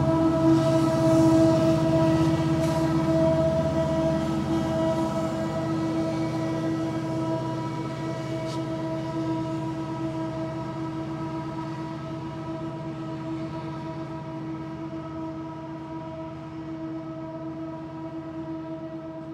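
Norfolk Southern mixed freight train moving slowly uphill: a low diesel rumble with a steady whine above it, fading steadily as the train moves away.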